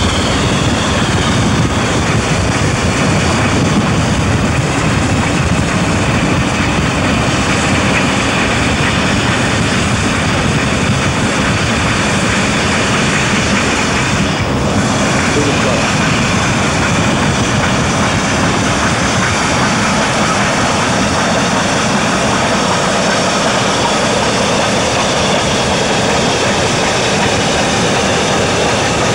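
Steady roar of road and wind noise from a moving car, mixed with the working of two steam locomotives, New Zealand Railways J and Ka classes, double-heading under heavy smoke alongside.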